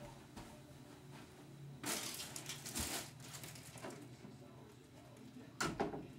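Rustling and shuffling as someone moves about inside a closet, then the bifold closet doors are pulled shut with a short clatter of knocks near the end.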